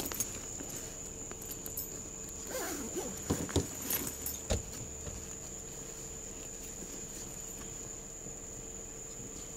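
Handling noise on a body-worn camera's microphone: a few soft knocks and rustles between about two and a half and four and a half seconds in, over a steady faint high-pitched electronic whine.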